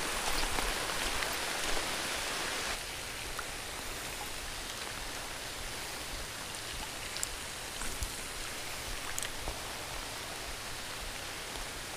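Steady rain falling on a river's surface and the plants along the bank: an even hiss that eases slightly about three seconds in, with a few faint ticks.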